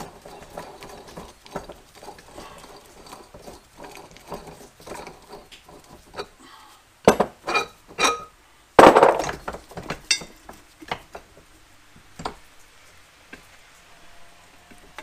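Metal tools and mini tire changer parts clinking and knocking as they are handled: light clicks at first, then a few sharp knocks around seven seconds in and the loudest clatter about nine seconds in, with scattered knocks after.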